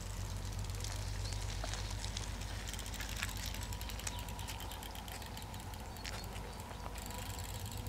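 Level crossing warning signal sounding while the barriers are down, with fast bicycle freewheel ticking in the middle as a bicycle coasts up to the barrier.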